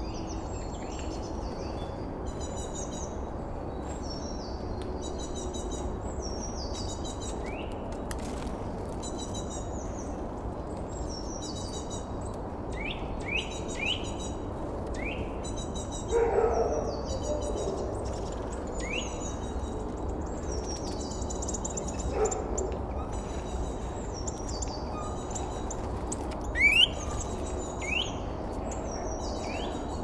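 Small woodland songbirds calling: a busy mix of high chirps, short repeated notes and quick downward whistles over a steady low background hum. A lower, louder call stands out about halfway through and again a few seconds later, and a sharp high chirp near the end is the loudest.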